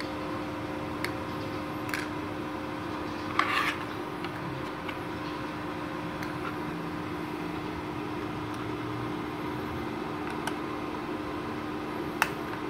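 Cooling fan of a 450-watt MIG welding machine running with a steady hum. A few light clicks and a short rattle about three and a half seconds in break through it.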